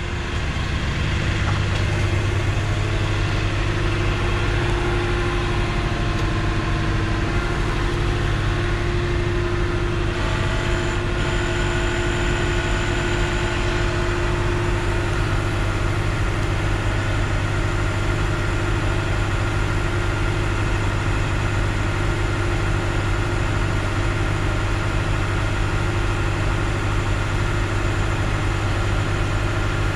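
Tow truck's engine running steadily to drive the winch as its cable is tightened, a low, even drone. A higher steady tone over it fades out about halfway.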